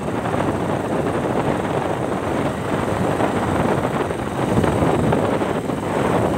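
Motorcycle on the move at a steady pace: a constant rush of wind on the microphone mixed with engine and road noise.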